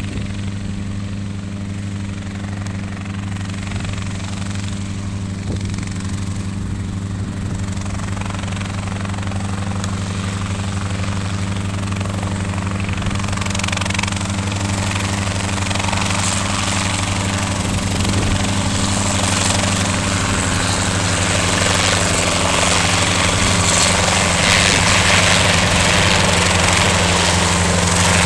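Helicopter running with a steady low drone, growing slowly louder while a rushing hiss builds from about halfway through.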